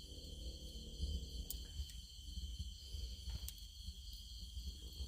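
Steady high-pitched chirring of insects in the background over a low rumble, with two faint clicks.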